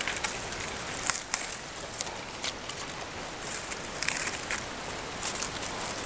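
Dry bamboo leaves and twigs rustling and crackling as a hand pulls at a clump of bamboo, in irregular crisp rustles that come and go.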